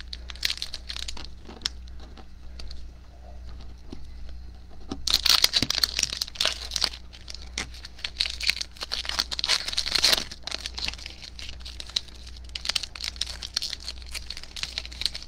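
Foil wrapper of a trading card pack being crinkled and torn open by hand, the crackling heaviest through the middle.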